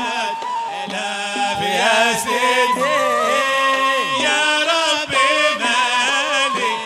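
Men's voices chanting an Arabic religious qasida in Hadhrami inshad style: several voices singing together in long, wavering melodic lines that glide up and down without a break.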